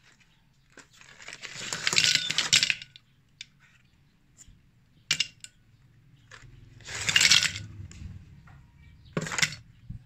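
Aluminium Nespresso coffee capsules poured into a glass vase, clattering and clinking against the glass and each other in two long pours, with a few single clinks between them and near the end.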